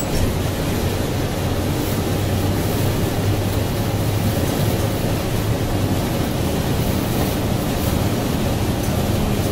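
Steady road and wind noise in a 2007 NABI 60-BRT articulated natural-gas bus cruising at speed, with a low, even drone from its Cummins Westport ISL G engine underneath.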